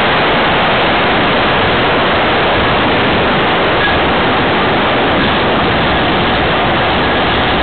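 Steady, loud rushing noise from a radio-controlled model aircraft, heard through its own onboard camera: motor and airflow noise with no distinct engine note.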